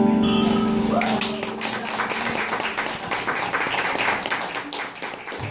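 The last strummed chord of acoustic guitars rings out for about a second, then hand clapping and applause, with a few voices.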